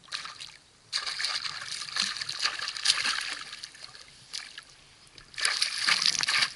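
Hooked pike thrashing and leaping at the water's surface, splashing in bursts: a short splash at the start, a long stretch of splashing from about a second in, and another burst near the end.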